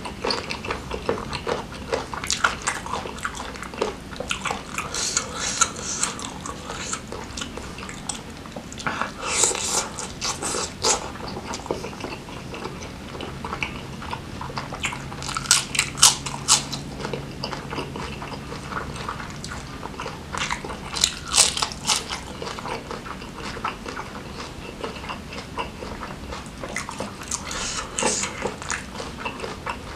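Close-miked eating of grilled chicken with chilli sambal: steady chewing and biting, with louder clusters of bites every several seconds.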